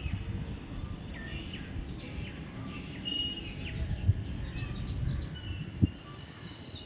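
Several small birds chirping over a steady low rumble of background noise, with a couple of brief thumps around four and six seconds in.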